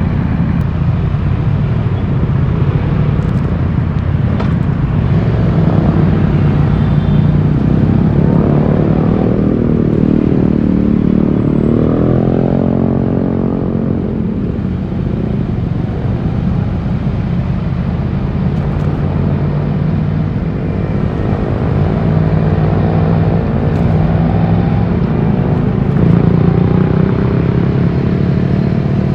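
Yamaha YZF-R1's 1,000 cc inline-four on its stock exhaust, running under way with steady road noise; the engine note climbs under acceleration about ten seconds in, drops back a couple of seconds later, and rises again near the end.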